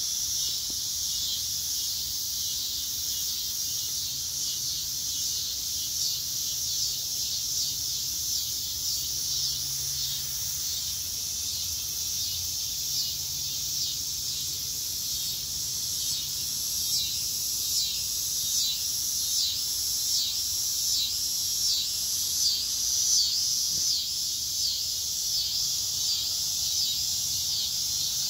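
Dense, high-pitched chorus of insects singing steadily in the woods; about halfway through it takes on an even pulsing beat of roughly two a second.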